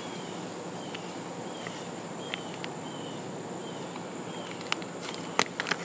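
Outdoor background with a steady high-pitched insect drone and a few faint short chirps. Light clicks and crinkles of a zip-top plastic parts bag being handled come now and then, more of them near the end.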